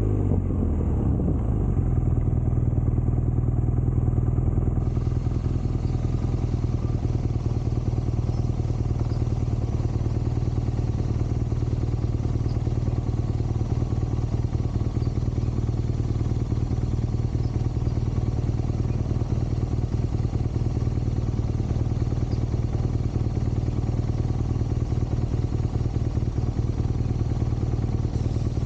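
BMW R nineT Scrambler's 1170 cc air/oil-cooled boxer twin idling steadily with an even pulsing beat. Its revs fall away in the first second as the bike comes to a stop.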